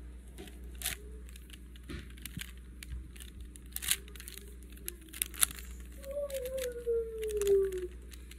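Plastic Rubik's cube being twisted by hand: a scattering of short clicks and clacks as the layers turn. About six seconds in, a person hums one long, slowly falling note.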